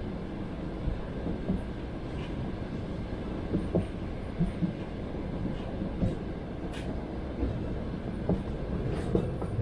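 Passenger train running along the line, heard from inside the carriage: a steady low rumble of wheels on rails, with occasional knocks as the wheels cross rail joints.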